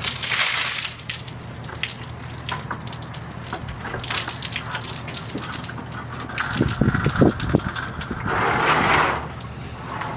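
Water from a leak pouring out of the ceiling in a sudden gush and splashing onto the walkway as a ceiling panel is pulled down, lasting about a second. Scattered taps and knocks follow, and a second short rush comes about eight and a half seconds in.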